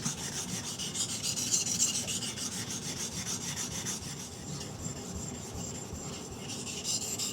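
Steel knife blade rasping back and forth in repeated strokes on a 400 grit water stone, reprofiling the edge.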